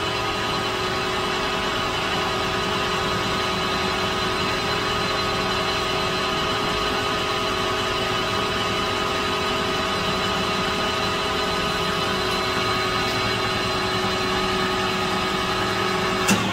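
Metal lathe running: a steady motor and gear hum with several fixed steady tones. Near the end there is a sharp click, and the sound starts to die away as the lathe is switched off and spins down.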